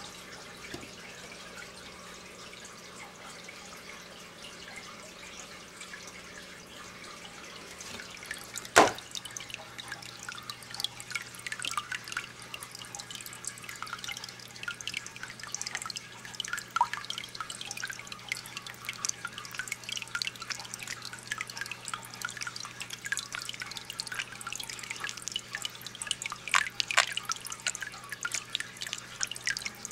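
Water dripping and splashing in quick irregular drips and clicks around a handled porcupinefish, beginning with a sharp knock about nine seconds in, with a few short squeaks among the drips that the title gives as the fish's call. A low steady hum runs underneath.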